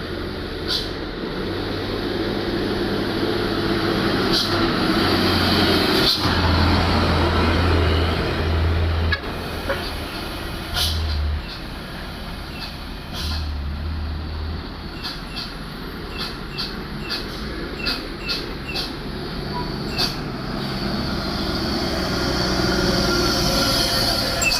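Heavy dump trucks' diesel engines running in a queue, a low rumble that swells and eases, with stretches of hiss and scattered short sharp hisses and clicks.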